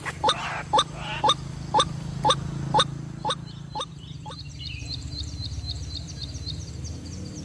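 White-breasted waterhen calling, sharp notes repeated about twice a second, dying away about four seconds in. A faster, higher series of chirping notes follows to the end.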